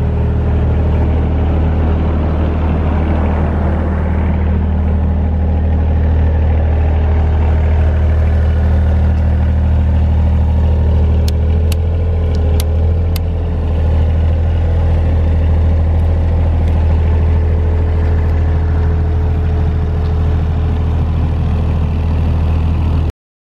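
JCB LT9 lighting tower's generator engine running steadily with a deep hum. About halfway through, five sharp clicks as the lamp circuit breakers are flipped by hand, and the engine's note shifts slightly after them; the sound cuts off abruptly near the end.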